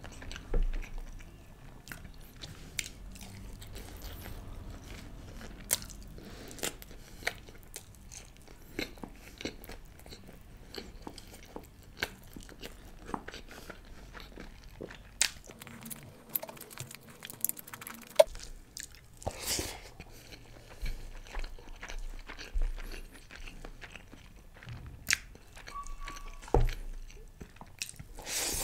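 Close-miked eating sounds: chewing and biting chicken biryani and chicken meat off the bone, with irregular wet mouth clicks and smacks.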